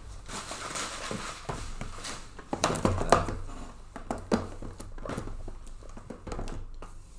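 Packaging of a case of trading-card hobby boxes being handled and unpacked: rustling and crinkling with scattered taps and knocks, the sharpest a few about three seconds in.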